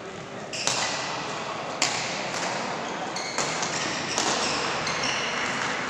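Badminton rally: several sharp racket strikes on the shuttlecock, roughly one every second, with short high squeaks over a steady background hubbub.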